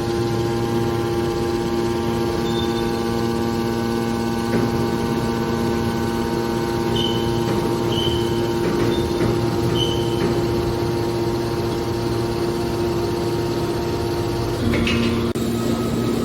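Scrap metal baler's hydraulic power unit running with a steady electric hum, with a few short high-pitched tones in the middle and a brief knock and change in the hum near the end.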